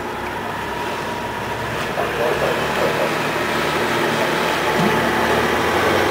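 RNLI rigid inflatable lifeboat's engines running close by, the noise rising about two seconds in as the boat starts to power up and churn the water.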